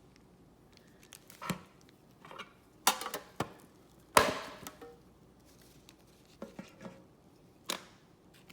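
Trading cards and foil packs handled on a tabletop: scattered taps and clicks, about eight in all. The loudest comes about four seconds in and is followed by a short rustle.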